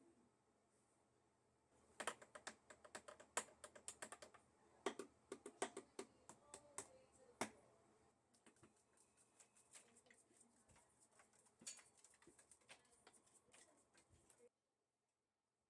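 A run of quick, light clicks and taps from hands working something small: dense for about five seconds, then sparser, and cut off suddenly about a second before the end.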